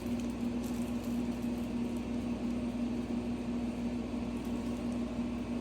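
Steady machine hum with one constant low tone and a haze of noise, such as a fan or air-conditioning unit running.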